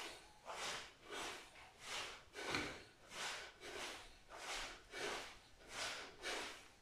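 A person breathing hard during exercise, in short rhythmic puffs through the nose and mouth, about two a second.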